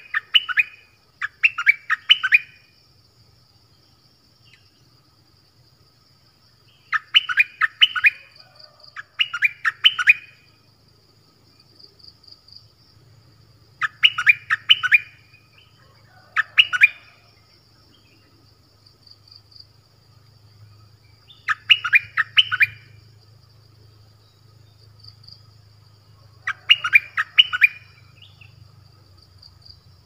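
Caged decoy songbird, the kind kept in Thailand as a 'dok taeng' bird, singing short phrases of several quick whistled notes, each about a second long, repeated every few seconds. A faint steady high insect buzz runs underneath.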